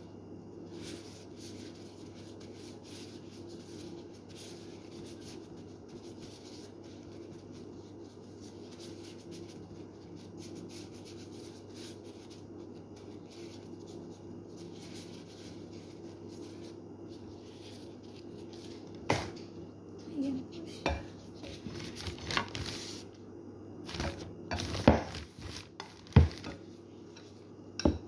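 Steady low hum with soft rustling of plastic food-prep gloves as food is shaped by hand. From about two-thirds of the way in come a series of sharp clinks and knocks of dishes and utensils, the loudest near the end.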